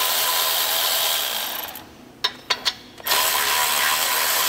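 Cordless electric ratchet running, spinning a nut off a stud at the turbocharger outlet, in two runs about a second apart. Three light clicks come in the gap between them.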